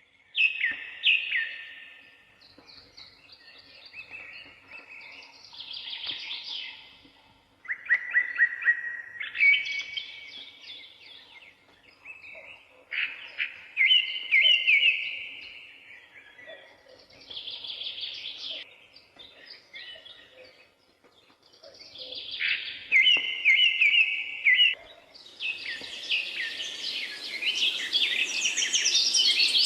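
Songbirds singing short phrases of chirps and trills, a new phrase every two to four seconds. About 25 seconds in, a denser chorus of high chirping joins along with a steady hiss.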